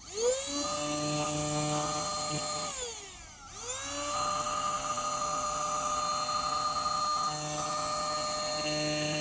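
Handheld cordless vacuum's motor spinning up with a rising whine and running steadily as the nozzle sucks debris off a fabric car seat. About three seconds in the whine falls away as it switches off, then it spins back up and runs on.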